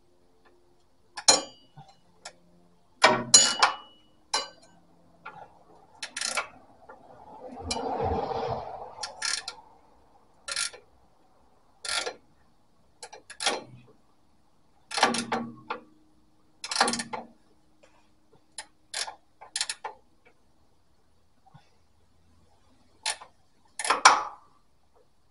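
Sharp metallic clicks and clinks at irregular intervals, about fifteen in all, as a shock absorber's top-mount hardware is handled and fitted. There is a duller scraping noise lasting about a second near the middle.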